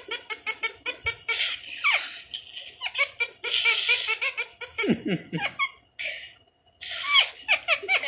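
Ring-necked parrot making rapid, high-pitched, laugh-like chattering calls, with a lower falling laugh-like sound about five seconds in and a short pause just after.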